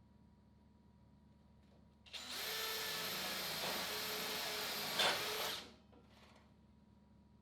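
A handheld power tool runs steadily at full speed for about three and a half seconds, with a steady whine, then stops. There is a sharp click near the end of the run.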